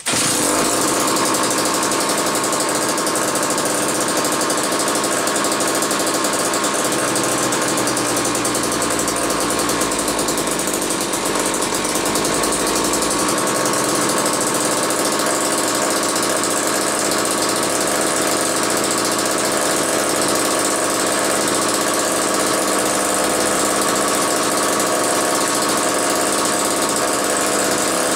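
Vintage McCulloch 1-40 chainsaw's two-stroke engine running steadily on the bench without load. The mechanic is unsure of the cause of its poor running, which he thinks could be a bad crankshaft seal or sludge in the crankcase.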